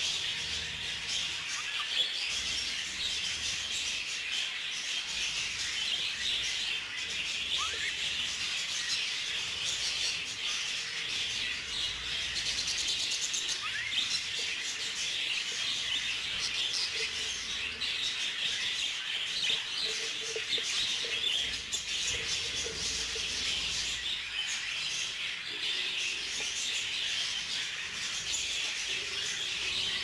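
Budgerigars chirping and chattering steadily, a dense chorus of high calls.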